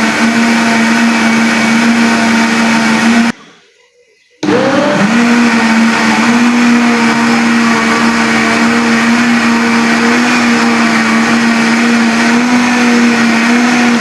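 Electric kitchen blender running steadily, pureeing papaya seeds and garlic in water. It cuts out about three seconds in, stays silent for about a second, then starts again with a rising whine and runs on steadily.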